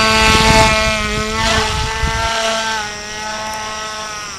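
Electric motor and propeller of a FliteTest Sea Otter RC plane at high throttle just after a hand launch: a steady whine that dips a little in pitch twice and fades as the plane flies away. Wind rumbles on the microphone during the first couple of seconds.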